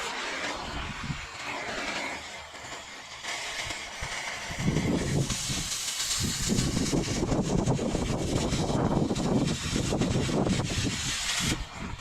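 Oxy-fuel cutting torch hissing on steel, turning louder and rougher with dense crackling from about five seconds in.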